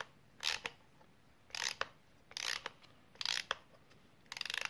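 Spring motor of a GIC 16mm cine camera being wound by hand with its side winding key: five short strokes of ratcheting clicks, about a second apart, the last a quicker run of clicks.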